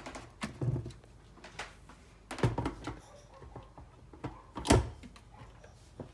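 Knocks and clunks of a glass blender jar and its plastic lid being handled, with the loudest thud near the end of the jar being set onto an Oster blender base; the motor is not running.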